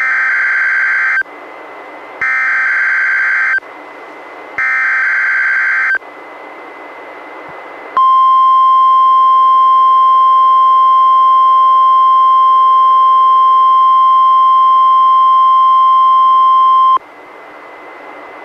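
Three bursts of EAS/SAME digital header data, each a harsh warbling screech of a little over a second, about a second apart, then the NOAA Weather Radio 1050 Hz warning alarm: one steady tone held for about nine seconds that cuts off suddenly. It is the start of a Required Weekly Test on a weather radio, with radio hiss between and after the tones.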